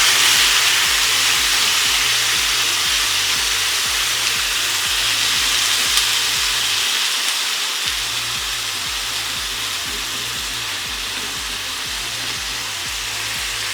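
Marinated chicken pieces sizzling as they fry in hot oil in a pan, the sizzle easing slowly.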